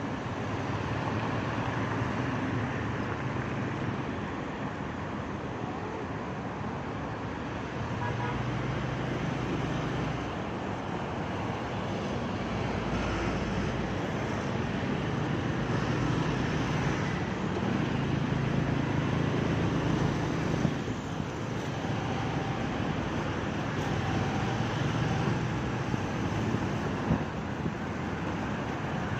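Riding a motor scooter in heavy city traffic: a steady rush of road and traffic noise, with the scooter engine's low hum swelling and easing every few seconds as the throttle opens and closes.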